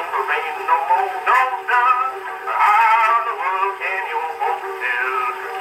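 An early-1920s acoustic recording of a song playing back on a horn cylinder phonograph: a voice carrying a melody over accompaniment. The sound has no bass and little treble.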